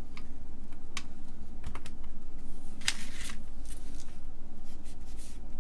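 A few sharp, separate clicks and taps of plastic IC packages being handled and one pressed into its socket on the circuit board, most of them in the first three seconds.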